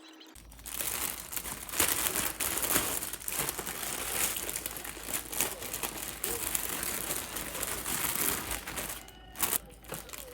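Irregular crinkling and rustling with many sharp crackles, like material being handled and crumpled close up.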